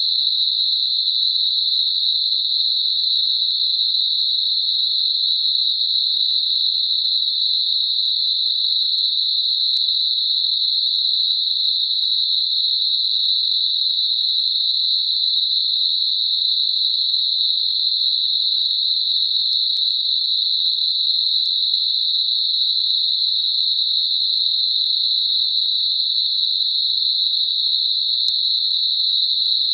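Synthetic narrow-band noise centred at 4 kHz, a steady, even high-pitched hiss with no low end, made as a tinnitus masker.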